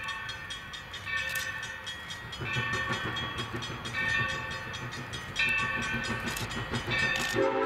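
Whistle of steam locomotive 3025, a Chinese-built 1989 2-8-2 Mikado, sounding about six short blasts roughly a second and a half apart as the engine approaches. Under it the train's low rumble grows louder, and a louder, lower-pitched tone starts just before the end.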